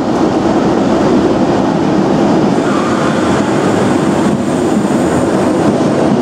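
Class 90 electric locomotive hauling Mark 3 passenger coaches past a station platform: a loud, steady rush of wheel and rail noise as the train goes by close to the platform edge.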